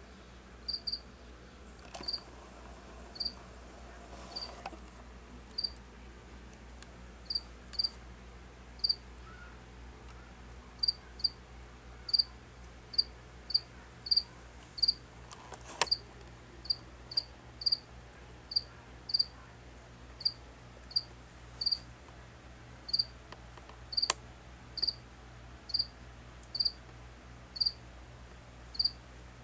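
A cricket chirping: short, high single chirps, sparse at first and then coming about one and a half a second from about ten seconds in.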